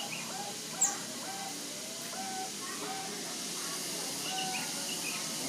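Several zebra doves (perkutut) cooing, short repeated notes overlapping from more than one bird. A single sharp, brief high click stands out about a second in.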